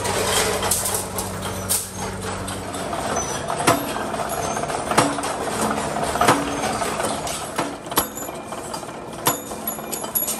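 Carriage-bolt making machinery running. An electric motor hums steadily at first, then a machine strikes with sharp metal clanks roughly every second and a quarter.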